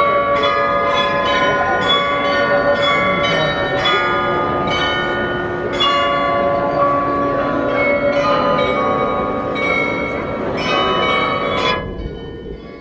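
The bells of the Munich Rathaus-Glockenspiel playing a tune, struck notes following about two a second and ringing on into each other. The bells stop abruptly near the end.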